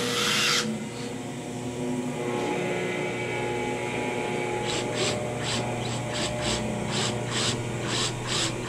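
DeWalt cordless drill boring an 8 mm hole through a fibreglass kayak hull, widening a 5 mm pilot hole. It opens with a brief loud burst, and from about halfway the bit rasps through the fibreglass in a regular stroke about twice a second.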